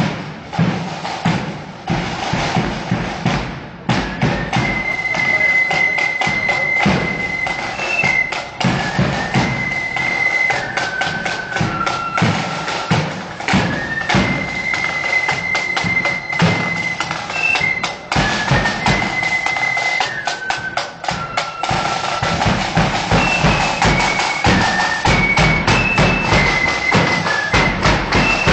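Marching flute band playing. Snare and bass drums beat alone at first, then about four seconds in the flutes come in with a high tune in unison over the drums.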